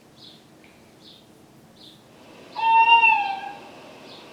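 Recorded owl call: a few faint high chirps, then about two and a half seconds in one long, slightly falling hoot.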